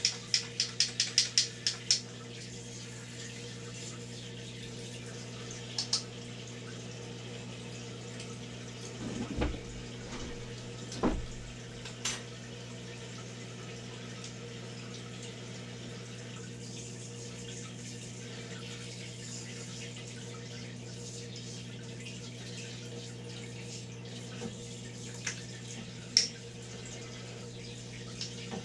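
A transmission part being rinsed off under steadily running liquid, over a constant low electric hum. A quick run of about ten sharp clicks comes in the first two seconds, and a few single knocks come later.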